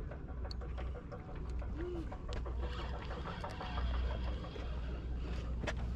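Low, steady rumble on the deck of a sportfishing boat, with scattered light clicks and knocks and a short faint tone about two seconds in.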